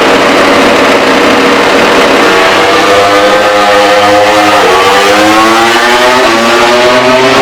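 MotoGP racing motorcycle accelerating hard through the gears, its engine note climbing and dropping back twice with upshifts, about four and a half and six seconds in.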